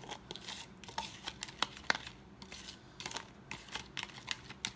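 Metal spoon stirring olive oil and lemon pepper in a plastic bowl, knocking and scraping against its sides in irregular light clicks, several a second.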